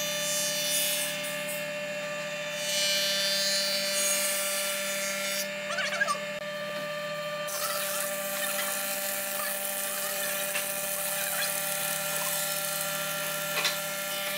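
Marunaka thickness planer running with a steady whine, the rushing noise of its cutterhead swelling in stretches as boards feed through, with a couple of brief squeaks.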